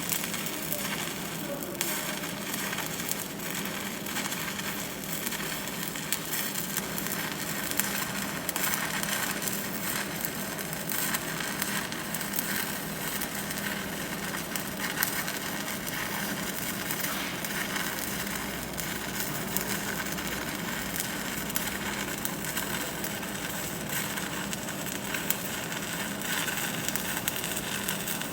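Welding arc crackling and sizzling steadily, a dense run of fine sputtering clicks with a faint steady hum beneath.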